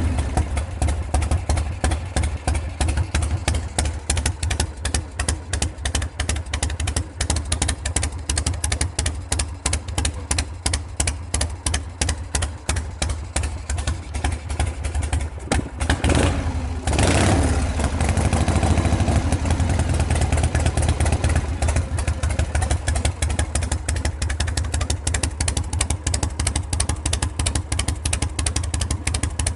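Harley-Davidson Shovelhead 74-inch V-twin idling cold through straight pipes, a fast train of exhaust pulses while it warms up after a stone-cold start. A little past halfway the throttle is blipped once, briefly raising the pitch and level before it drops back to idle.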